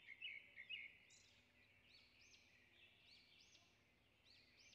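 Near silence, with faint birds chirping in the background: short, high chirps repeating every half second or so.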